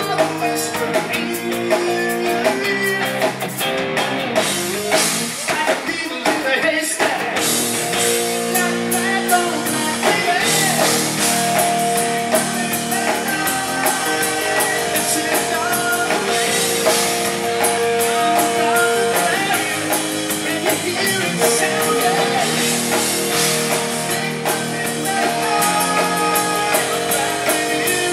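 Rock band playing live: electric guitar, bass and drum kit, with a male lead voice singing over them.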